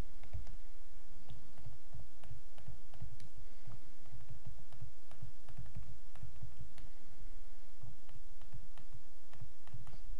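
A stylus clicking and tapping irregularly on a tablet screen during handwriting, over a steady low hum.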